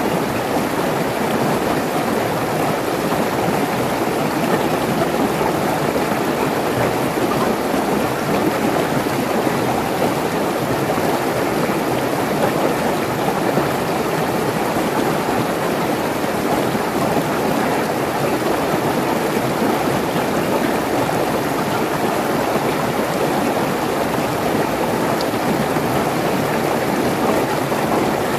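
Mountain stream rushing and splashing over rocks in a small cascade: a steady, loud rush of water.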